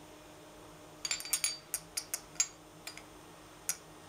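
Small aluminium part being pressed and rocked in a machine vise: a quick run of light metal clicks and taps as it shifts against the vise jaws and parallels, then two more single clicks. This is a check for rocking in the part's seating, which was suspected to come from a burr.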